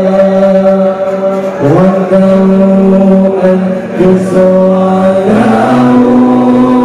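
A man chanting Islamic devotional song (sholawat) into a microphone over the hall's loudspeakers. He holds long notes and slides to a new pitch about every one to two seconds, with no drums.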